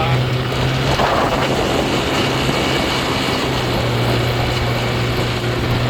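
Boat motor running at a steady pitch, with the rushing noise of the boat moving through water and air.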